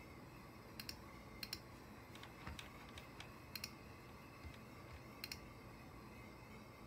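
A handful of faint, sharp clicks scattered over a low background hiss, most coming in quick pairs, as from computer keys or buttons being pressed.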